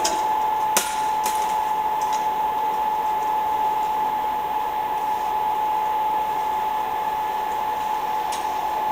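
Class 460 'Pantograf' electric multiple unit standing with its auxiliary machinery running: a steady rushing blower noise with one constant whine, and a sharp click about a second in.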